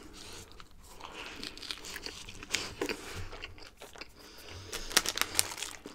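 A person chewing and biting into a cheese-topped Turkish flatbread, with soft crunches and a few sharper crunches near the end.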